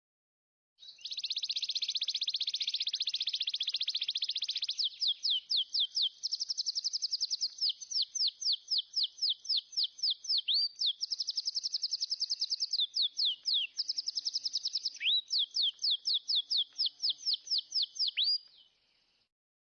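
A small songbird singing: high, fast trills alternating with runs of quick downward-sweeping whistled notes, about five a second, with a few longer swooping notes in between.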